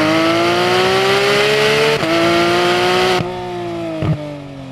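Car engine sound accelerating, its pitch climbing and then dropping suddenly twice, about two and three seconds in, like gear changes. After the second drop it goes on quieter and steadier.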